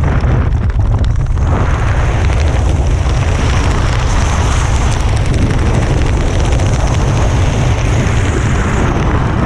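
Wind buffeting the microphone of a skydiver's camera during descent under an open parachute: a loud, steady, deep rumble with a hiss above it.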